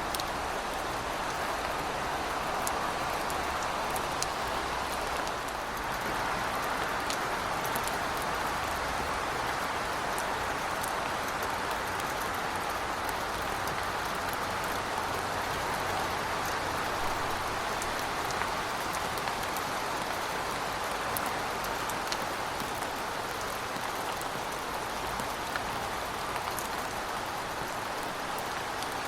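Heavy rain falling steadily, an even hiss with scattered sharp ticks of individual drops striking a surface.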